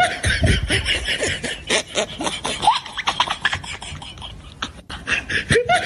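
A man's mouth noises: a rapid run of clicks, pops and short upward squeaks, like beatboxing.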